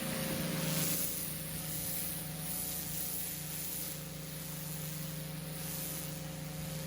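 Pressure washer running with a steady motor hum while its water jet hisses against block paving, the spray swelling and fading as it sweeps.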